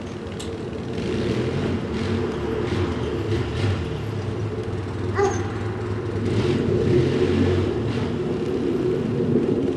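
Polaris Sportsman 700 X2 EFI ATV engine running steadily and pulling away under light throttle, with a brief click about five seconds in.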